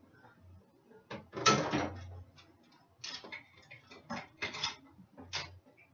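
Kitchen items being handled: a series of sharp clicks, knocks and short scraping rattles, the loudest and longest about a second and a half in, then several shorter clatters.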